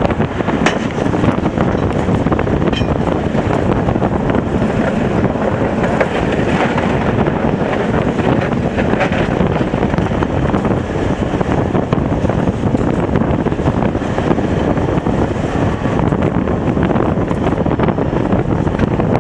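Tatra T3 tram running along the line: a steady, loud rumble of wheels on rails and running gear, with wind noise on the microphone.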